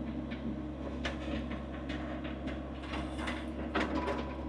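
A shovel scraping and knocking into wet dirt and roots in irregular strokes, over a steady low engine-like hum.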